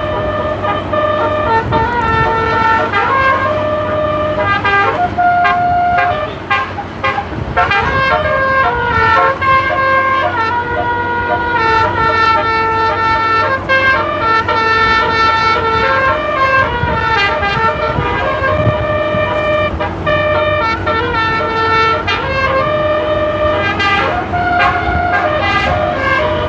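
An 18-note 'basuri' bus telolet musical air horn playing a melody non-stop: loud held notes that step from pitch to pitch, often several sounding together.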